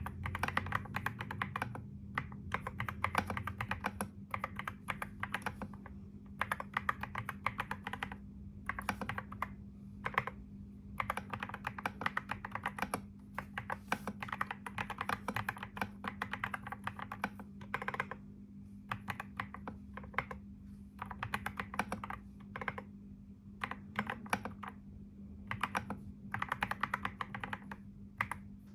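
Typing on a computer keyboard in rapid runs of key clicks, a second or two at a time, broken by brief pauses. A steady low hum runs underneath.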